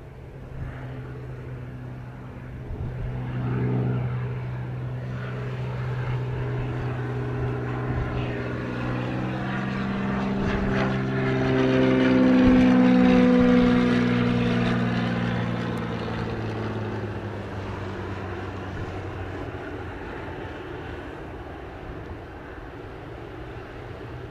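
Single-engine propeller plane, a Cessna 206, flying overhead on final approach: its engine and propeller drone grows louder, passes overhead about halfway through with the pitch dropping, then fades away.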